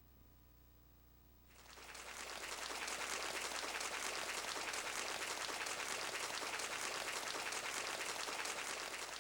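Kumyoung Chorus 88 karaoke machine (Roland SC-88 sound module) playing a sound effect: a dense crackle of noise that swells in about a second and a half in, holds steady, and starts to fade near the end, over a low steady hum.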